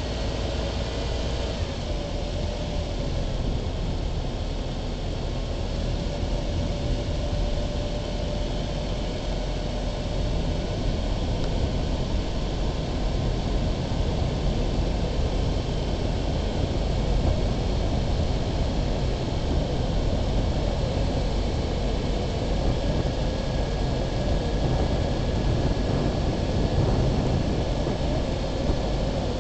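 Vehicle rolling slowly along an asphalt strip: a steady blend of engine, tyre and wind noise with a faint wavering whine, getting a little louder after about ten seconds.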